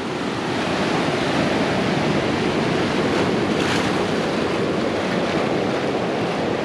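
Pacific Ocean surf washing over a rocky shore and tide pools: a steady rush of breaking waves, with some wind.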